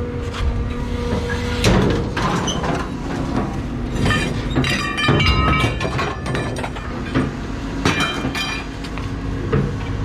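A heavy scrap-yard machine's engine running while scrap metal is grabbed and dropped: repeated metal clanks and crashes, with ringing clangs around the middle and again near the end.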